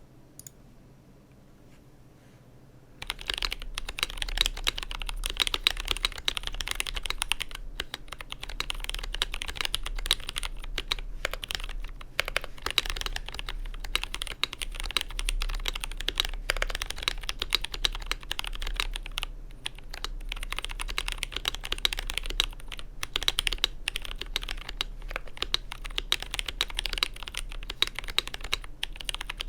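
Fast, continuous typing on a GMMK Pro mechanical keyboard with Zealios V2 67g tactile switches, an FR4 plate and Durock V2 stabilizers. It starts about three seconds in, after a near-silent pause broken by a couple of single clicks.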